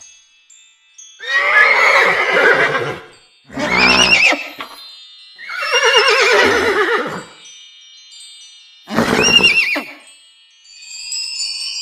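Unicorn sound effect: four horse-like whinnies with a warbling pitch, separated by short pauses, over faint high ringing tones. Near the end, a shimmering chime sweep rises in.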